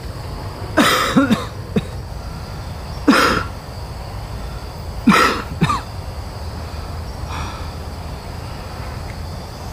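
A person coughing in three bouts about two seconds apart, the first and last of two or three coughs each, over a steady low hum.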